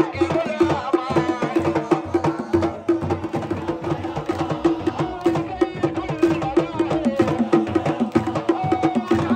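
A stand of sports supporters singing a chant together over fast, steady hand drumming.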